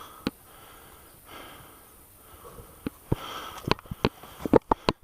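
Scattered sharp pops of airsoft guns firing, with a quick string of four or five shots near the end. Between the shots there are soft, noisy breaths and sniffs close to the microphone.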